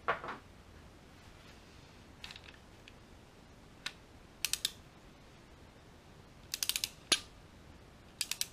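Ratchet head of a click-type torque wrench clicking in short quick bursts as an LS7 lifter-tray bolt is run down, with one sharper, louder single click a little after 7 seconds. A metallic clank with a short ring right at the start.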